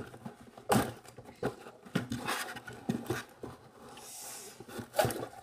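Plastic pieces and packaging of a children's science lab set being handled and unpacked with both hands: a string of light clicks and knocks, with a brief rustle about four seconds in.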